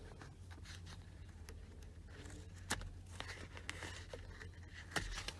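Faint scratching and scattered clicks of a razor blade cutting and peeling worn leather off a steering wheel, over a steady low hum.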